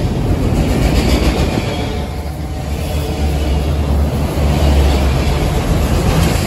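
Union Pacific freight train of autorack cars passing close by at speed: a steady, loud low rumble of steel wheels rolling on the rails, with the clatter of the cars over the track.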